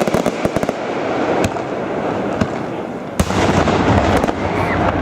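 Aerial fireworks going off: a quick run of sharp crackling reports in the first second over continuous rumbling, then a loud bang about three seconds in, followed by heavier rumbling booms.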